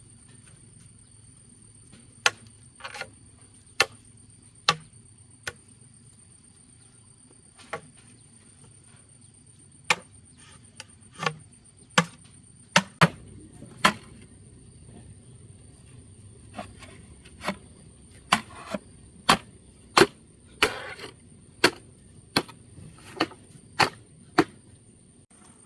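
Sharp blows of a tool striking bamboo or wood, irregularly spaced at roughly one a second, some coming in quick pairs.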